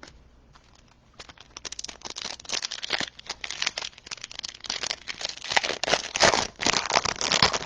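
Foil trading-card pack wrapper crinkling as it is handled and opened, a quick, dense crackle that starts about a second in and keeps going.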